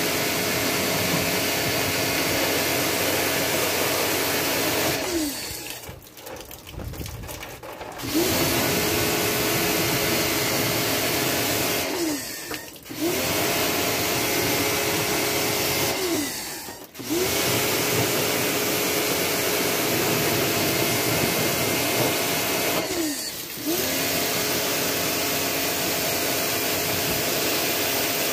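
Pressure washer running steadily as it sprays water, its motor stopping and spinning back up four times, the pitch falling at each stop and rising again on restart.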